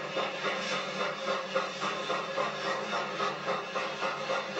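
Steam train running, with a steady rhythmic beat several times a second over a constant hiss.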